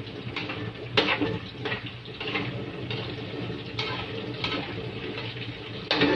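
Tofu deep-frying in a wok of hot oil, sizzling and bubbling steadily. Metal tongs clink and scrape against the wok a few times as the pieces are turned.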